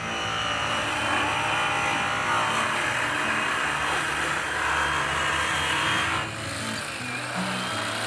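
Handheld DeWalt electric polisher spinning a purple Zephyr buffing wheel charged with green chrome rouge against an aluminium truck wheel, in the secondary-cutting stage of polishing. It runs with a steady rushing whir against the metal, then falls away sharply about six seconds in.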